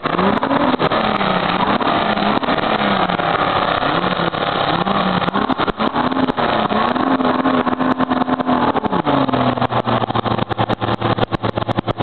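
Old Ford pickup's engine revving up and down over and over as the truck pushes through a mud pit on Swamper tires, then dropping to a lower, steady pitch near the end. Sharp crackles run all through it.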